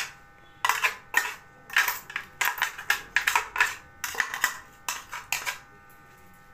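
A metal spoon scraping and knocking inside a blender jar as thick ground green chutney paste is scraped out: a run of short, sharp scrapes and taps, a couple a second, that stop about five and a half seconds in.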